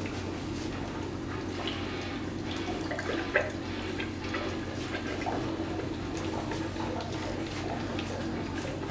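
Used engine oil running through a drain hose into a plastic oil jug, a steady trickle over a constant low hum, with a brief knock about a third of the way in.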